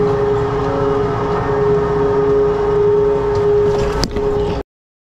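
Chairlift terminal machinery running with a steady whine over a low rumble. There is a sharp click about four seconds in, then the sound cuts off suddenly.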